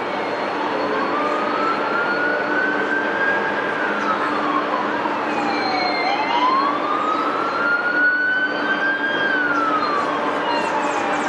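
A siren wailing slowly: its pitch climbs over a couple of seconds, holds, then slides back down, once about every six seconds. A fainter second siren glides higher up, over a steady low hum.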